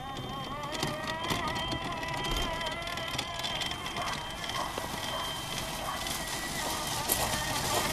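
Electric drive motors of a radio-controlled toolbox rover whining steadily as it drives, the pitch wavering slightly with speed, with a patter of small clicks and crunches from its wheels on the gravel.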